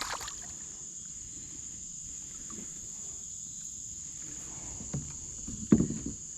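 Steady high-pitched buzzing of insects such as crickets, with a soft knock about five seconds in and a sharper, louder knock near the end.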